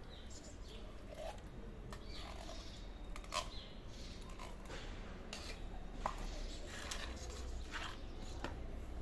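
Quiet scattered clicks and taps of food being scooped and set into a plastic dish, the sharpest about three and a half and six seconds in, with a few faint short high calls between them.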